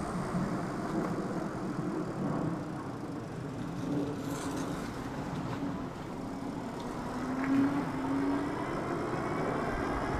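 Super73 S2 electric bike under way: a steady rumble of wind and tyre noise, with a faint whine rising in pitch over the last few seconds as it picks up speed.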